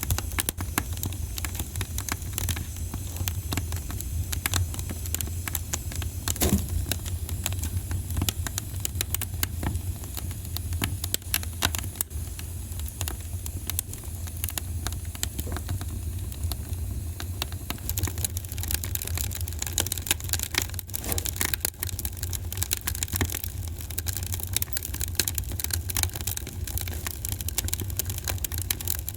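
Wood fire in a fireplace crackling, with many irregular small pops and a sharper pop about six seconds in, over a steady low rumble of burning.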